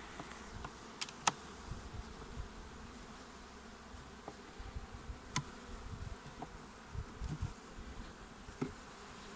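Honeybees buzzing steadily around an open hive, with a few sharp clicks as a hive tool pries at the wooden frames, the loudest about a second in and again about five seconds in.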